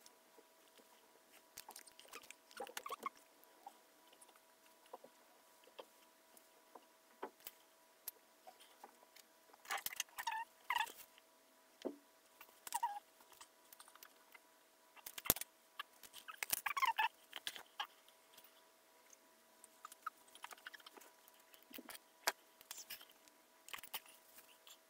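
Faint rustling, light clicks and short squeaky scrapes of a person moving about and handling clothing and things close to the phone, louder in clusters about ten and seventeen seconds in, over a faint steady tone.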